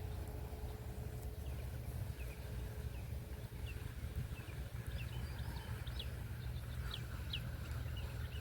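Small birds chirping in short calls, more often in the second half, over a steady low rumble of wind on the microphone.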